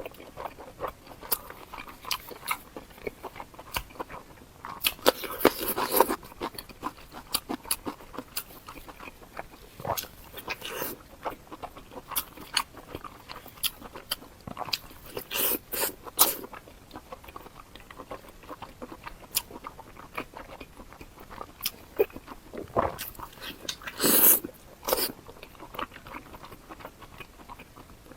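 Close-miked eating: crunching, biting and chewing with many small wet mouth clicks, and louder crunchy bites around 5 seconds, 15 seconds and 24 seconds in.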